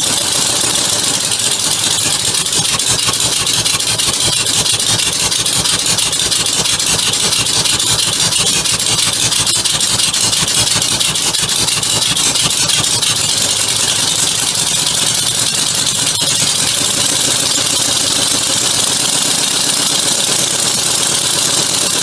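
A homemade three-cylinder compressed-air engine running on shop air. It gives a loud, steady hiss of exhausting air made of very rapid, even pulses.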